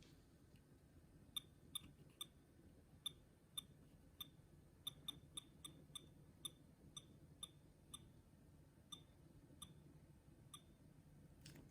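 Near silence with a low steady hum, broken by a series of faint sharp clicks, roughly two a second at uneven spacing, that start about a second in and stop shortly before the end.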